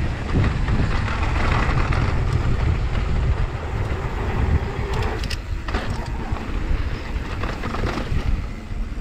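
Wind rushing over the microphone and knobby mountain-bike tyres rolling over a dusty dirt trail during a fast descent, a steady rumble with a brief clatter about five seconds in.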